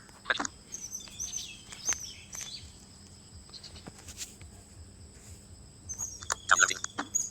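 Small birds chirping: short, high calls scattered through, with a busier cluster near the end.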